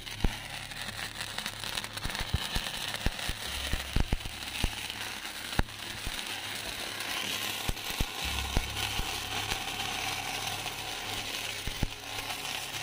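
Lit sparklers crackling and spitting, with dense sharp crackles over a steady hiss. From about halfway through, the hiss builds as the cone fountain fireworks (pookkutti) they are lighting start to spray.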